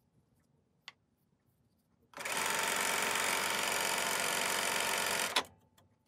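Bernina sewing machine stitching a straight seam: after a near-silent pause with a single click, it starts a couple of seconds in, runs steadily for about three seconds and stops near the end.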